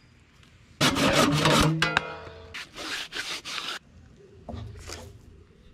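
Rasping, scraping strokes worked on a PVC pipe held in a bench vise: one long stroke about a second in, a brief squeak, then two shorter strokes and fainter scrapes near the end.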